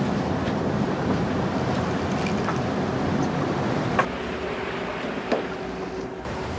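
Steady wind and sea noise aboard a sportfishing boat under way, with the low hum of the boat's engine. Two short sharp clicks sound about 4 seconds and 5 seconds in.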